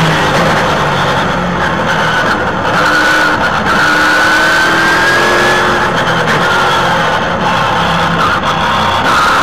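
A Trans Am race car's engine at racing speed, heard onboard: loud, its pitch climbing steadily and breaking back several times at gear changes.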